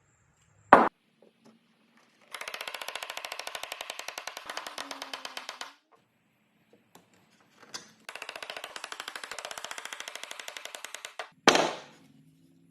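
A power tool with a rapid, regular chatter runs twice, about three seconds each with a short pause between. A sharp knock comes about a second in, and another near the end.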